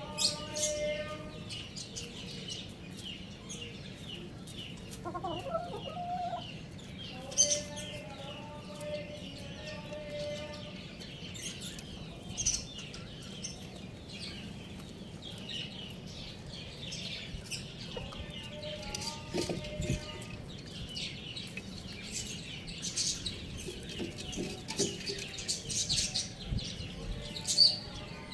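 Chickens clucking while foraging, with a few drawn-out calls lasting a second or two, over frequent short sharp clicks and rustles of pecking in dry litter.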